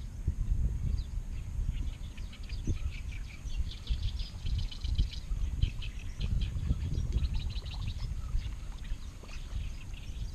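Birds chirping rapidly over a low, uneven rumble of wind on the microphone.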